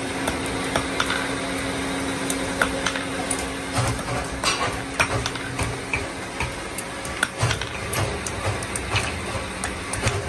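Hand hammer striking red-hot iron rod on a small steel die, forging a wiring hook: irregular metallic knocks. A steady low hum under them fades about six seconds in.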